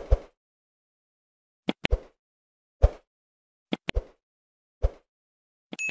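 A subscribe-button animation sound effect: about ten sharp clicks, like mouse clicks, some in quick pairs with silence between them, then a bell ding that rings out right at the end.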